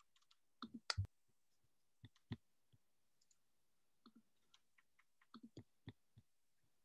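Faint, scattered clicks from operating a computer's pointing device while starting a slide presentation: a quick group of clicks about a second in, two more a little after two seconds, and a short run of clicks between five and six seconds.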